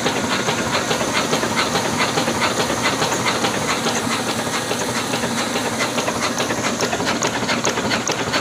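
Old 20 hp black single-cylinder diesel engine running steadily: an even, rapid chugging of about five beats a second over a constant hissing rush.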